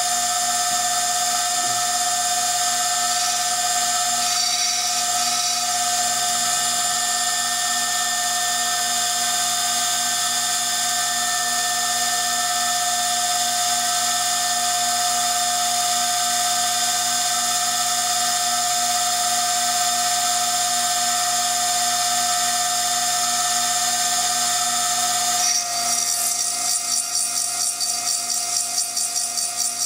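High-speed CNC engraving spindle, at around 40,000 RPM, whining steadily as its freshly reground sharp cutter engraves the glass of a beer bottle. About 25 seconds in, the whine shifts and begins to pulse rapidly.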